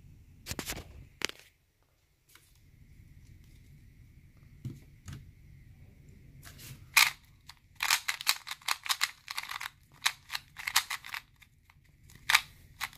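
A few knocks near the start, then from about seven seconds in a fast, dense run of clicks as the layers of a YJ MGC 2x2 magnetic speedcube are turned in a speedsolve.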